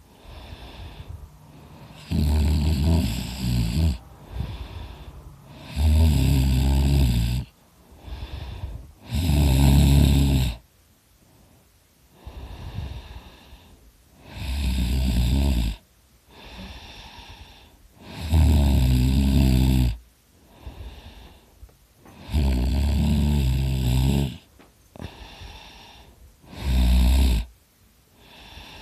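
A sleeping person snoring loudly: seven loud snores of one to two seconds each, about every four seconds, with quieter breathing sounds between them.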